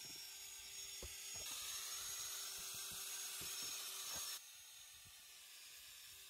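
Cordless drill spinning a wooden dowel, a steady whine with hiss, while the dowel tip brushes cobwebs off a corrugated metal shed wall with a few light knocks; the drill stops about four seconds in.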